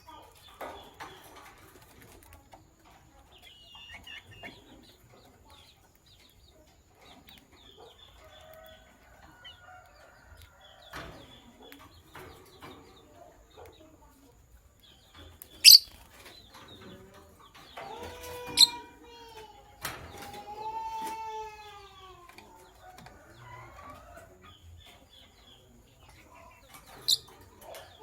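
Lovebirds chattering with soft twitters, broken by a few sharp, shrill chirps and a longer warbling call near the middle.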